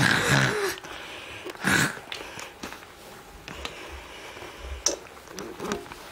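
A person's fake snoring: two loud, rough breath noises about a second and a half apart, the first carrying a brief voiced tone.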